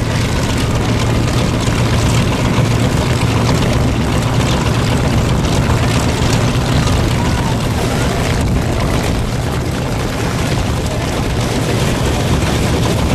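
Propeller aircraft piston engines running at a steady idle, a loud, even low drone.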